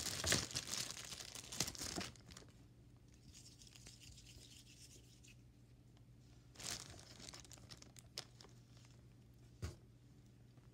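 Plastic wrapper crinkling close by for about two seconds. Then quieter, with a couple of short rustles and a single click near the end.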